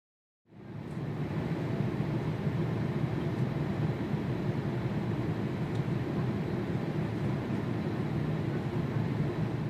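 Steady rumble of airliner jet engines, fading in about half a second in and holding even throughout.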